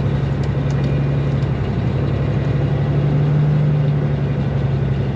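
Combine engine running steadily as it travels on the road, a little louder about three seconds in.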